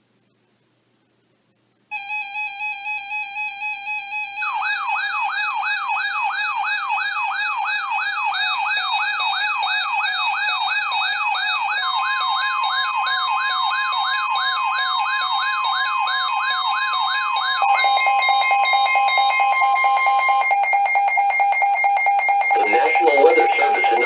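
Several NOAA weather radios going off together for a flash flood warning. A pulsing beep starts about two seconds in, and a warbling siren-like alarm joins it. In the middle a long steady alert tone, the NWS warning tone, sounds for about eight seconds; near the end an automated voice begins reading the warning over the alarms.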